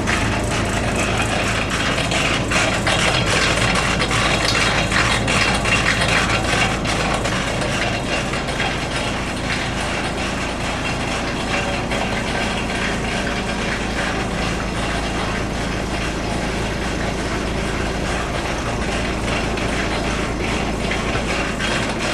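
Avant compact loader running with its hydraulic snowblower attachment engaged and the augers spinning: a steady engine sound under a dense rattle, heavier in the first several seconds. It runs evenly, with the augers clear of the new cutting edge's bolts; it sounds good.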